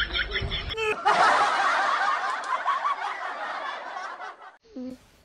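People laughing: quick, repeated giggling, then after a cut about a second in, a longer stretch of laughter that gradually fades away.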